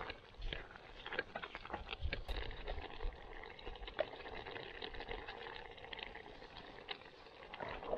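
Chilli bubbling and sizzling in a Trangia pot over its meths burner, with many small irregular pops and crackles.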